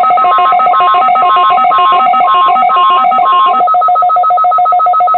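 Weather radio test alarm: a loud electronic signal of rapid, evenly spaced beeps on two steady pitches, with an on-off higher tone over it that drops out about three and a half seconds in. It is the warning alarm that a weekly weather radio test sends out to switch on alert receivers.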